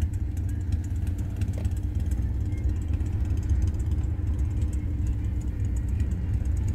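Car engine and cabin noise heard from inside a small car: a steady low rumble with a faint steady hum.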